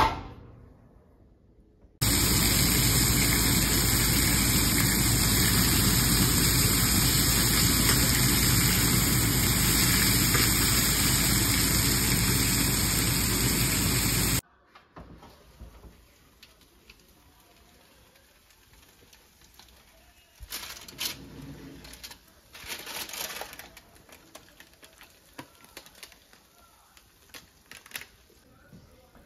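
The bottom storage drawer of a KitchenAid electric range bumping shut at the start. From about two seconds in, chicken thighs sizzle loudly and steadily in a stainless steel frying pan on the smooth-top cooktop, stopping abruptly about halfway through. The rest is faint, with a few short clatters.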